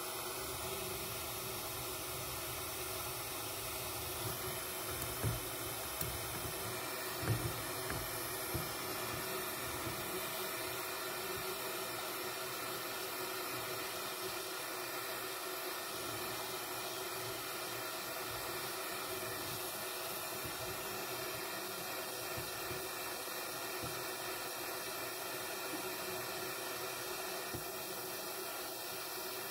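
Small handheld soldering torch hissing steadily as its flame heats a silver ring to flow solder into a void in the shank, with a few light taps early on.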